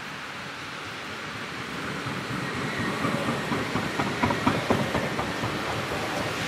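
CAF Urbos 3 tram passing close by. Its rolling noise rises as it nears, and a run of sharp clicks comes as the cars go past, loudest just over four seconds in.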